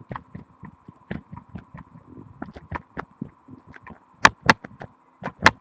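Webcam microphone held against the leg bone, picking up irregular small knocks and clicks of movement carried through the bone, a few a second, with several louder thumps near the end.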